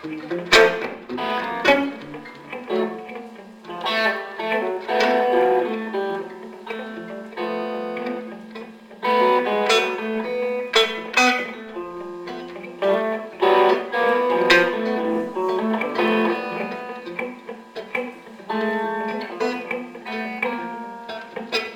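Electric guitar quartet playing contemporary music: many short, separately plucked notes from several guitars overlapping over a sustained low drone.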